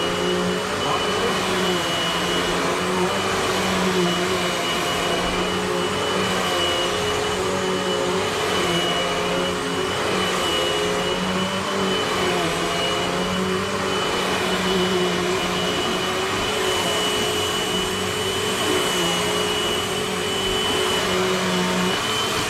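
Eureka AirSpeed bagless upright vacuum running steadily on carpet-high, sucking up shredded paper and sawdust from carpet. A constant rushing of air with a thin high whine over it, the lower pitch of the motor wavering slightly as the vacuum is pushed back and forth.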